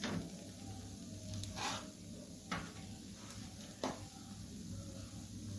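A few light clicks and taps over a low steady hum as a beetroot dosa cooks on a flat dosa tawa. The first tap comes just as a steel spoon is lifted from the edge of the pan.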